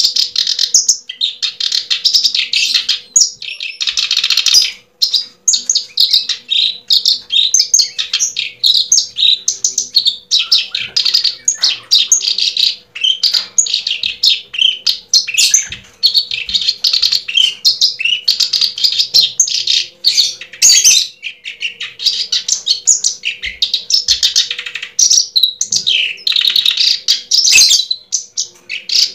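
Small birds chirping and twittering, high-pitched and continuous, with many rapid calls overlapping.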